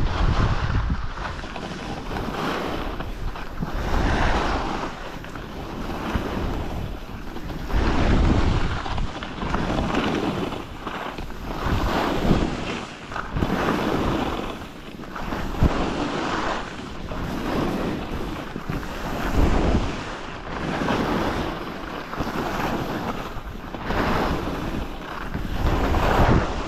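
Skis scraping and hissing over chopped-up packed snow through linked turns, the noise swelling about every two seconds, with wind rushing over the microphone.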